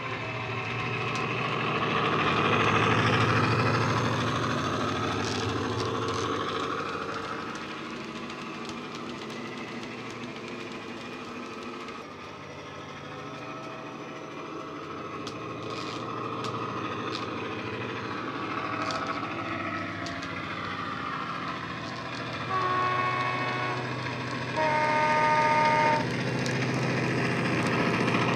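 Class 68 diesel locomotive sound from a model's DCC sound decoder (JMC Class 68 sound file) played through an EM2 speaker: the engine runs and swells as the locomotive works, then the horn sounds twice near the end, the second blast higher and louder.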